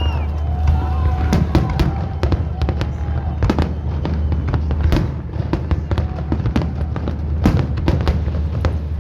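Fireworks salute going off: many sharp bangs and crackles in irregular quick succession over a steady deep rumble.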